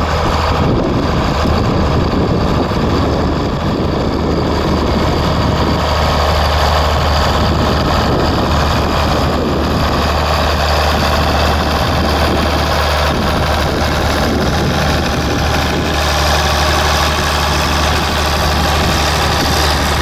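1967 Oliver 1850 diesel tractor engine running steadily under load while it pulls an 18-foot IH Vibrashank harrow through tilled soil: a loud, unbroken low drone.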